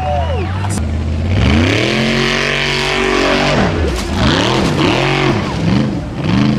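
Formula Offroad buggy's engine revving hard, the revs climbing steeply with tyres spraying dirt. After a sharp knock, the revs swing up and down several times as the buggy rolls over on the slope.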